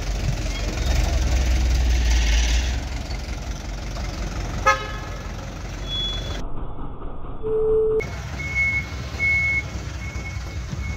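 Street traffic: a light truck's engine running close by, loudest in the first few seconds, and a short car-horn toot about five seconds in. Near the end comes a run of short high beeps.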